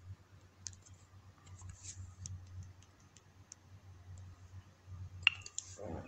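Quiet room tone with a steady low hum and scattered faint clicks, the sharpest one about five seconds in. A soft breath-like sound comes near the end.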